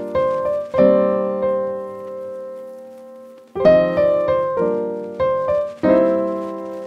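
Background music: a piano playing chords and short phrases, a held chord ringing out in the middle before the next phrase begins.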